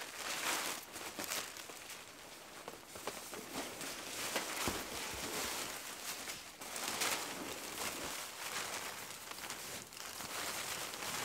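Tarp and fabric rustling and crinkling in uneven bursts as a tarp shelter is handled and taken down.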